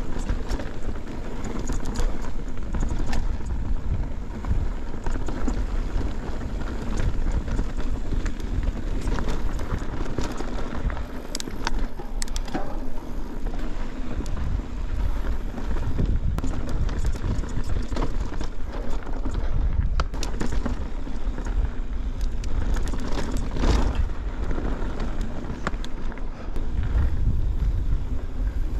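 Mountain bike riding along a dirt trail: tyre noise on the dirt with frequent sharp knocks and rattles from the bike over the ground, and wind buffeting the action camera's microphone.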